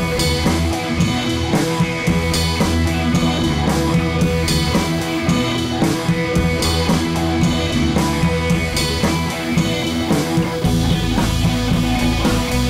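Background rock music with guitar and drums, playing steadily under the end credits; the bass fills out near the end.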